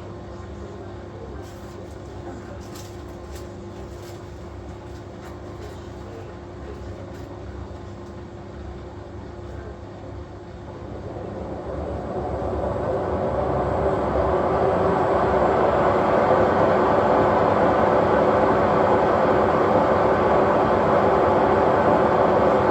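Washing machine drum spinning up on badly worn drum bearings. It runs fairly quietly at first, then grows much louder from about halfway and holds a loud, steady rumble.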